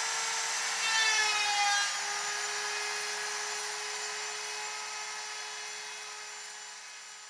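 Electric router motor running with a steady high whine as the automated chain drive carries it along the sled. The sound is louder, with a falling whine, about a second in, then settles and fades gradually toward the end.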